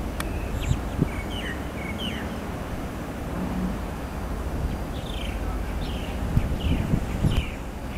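Birds chirping in short repeated calls over a steady low rumble of wind on the microphone and a Matra VAL 256 rubber-tyred metro train moving slowly, with a few low wind buffets near the end.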